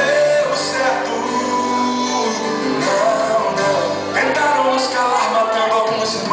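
Recorded Brazilian gospel pop song playing: a male voice sings long held notes over guitar and a full band backing.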